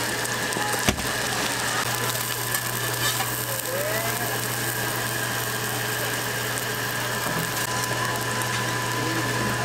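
Seafood and green onion pancakes frying in oil on a flat steel griddle, a steady sizzling hiss over a constant low machine hum, with one sharp click about a second in.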